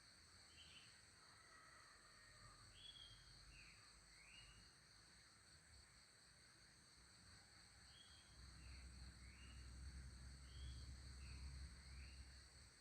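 Faint, steady high-pitched insect chorus with short chirps repeating every second or so, and a low rumble in the later part.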